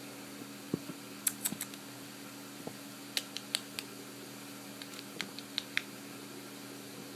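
Scattered light clicks and taps, in small clusters a second or two apart, as a kitten bats and claws at a yarn ball hanging on a string. A steady low hum runs underneath.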